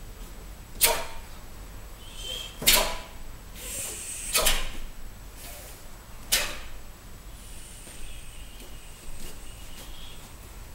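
Sharp snaps of TaeKwon-Do uniforms cracking as two people punch and kick through a pattern, four of them roughly two seconds apart in the first six and a half seconds, then quieter.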